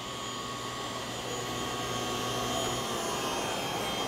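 SawStop cabinet table saw running with its blade spinning freely and no wood being cut: a steady motor-and-blade whine after start-up.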